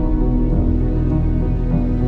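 Soft background music: sustained, gently shifting chords in a calm, melancholy mood.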